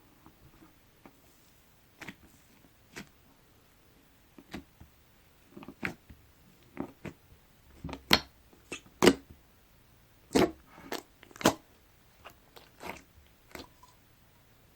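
Slime being pressed and squeezed by hand, giving irregular sharp wet pops and clicks as air pockets burst. They are sparse at first and come loudest and thickest a little past the middle.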